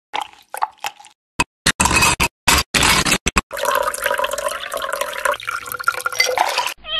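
A steel pestle mashes watermelon chunks in a glass with short wet squishes. Ice cubes clatter into the glass, then milk and matcha are poured over the ice in a continuous splashing pour.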